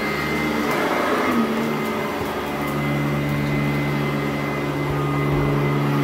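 Sanitaire SC899 commercial direct-air upright vacuum running on carpet, a steady motor hum with a high whine. Its pitch shifts briefly about a second in, then settles into a steadier, deeper hum.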